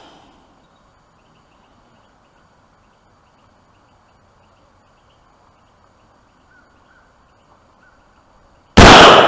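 Quiet outdoor background with faint chirping, then, near the end, a single shot from a 16-inch mid-length-gas AR-15 that rings out and dies away.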